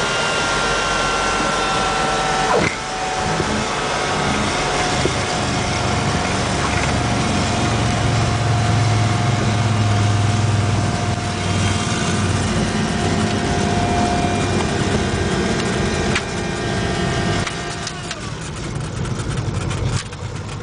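Cabin noise of a Piper PA-30 Twin Comanche's two four-cylinder Lycoming engines and propellers on landing, a steady drone whose tones slide slowly lower. A single knock comes about two and a half seconds in, and the noise drops a step near the end.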